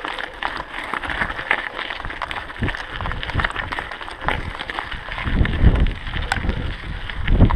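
Mountain bike tyres rolling over loose gravel with a dense crunching and rattle of the bike. From about five seconds in, wind buffets the microphone in low gusts.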